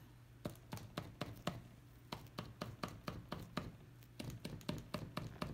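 Light, irregular tapping on the bottoms of upturned plastic cups on a canvas, about four or five taps a second, to help the paint inside flow down out of the cups.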